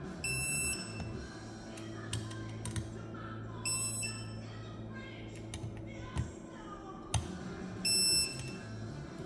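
A digital torque wrench beeps three times, about four seconds apart, each a short high electronic beep that signals the set torque of 8 foot-pounds has been reached on a bolt. A few light tool clicks fall between the beeps.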